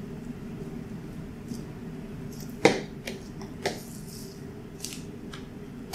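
Boning knife cutting through beef and sinew as a hindquarter is broken down, with short slicing strokes. A sharp knock about two and a half seconds in, the loudest sound, and a few lighter clicks after it, over a steady low hum.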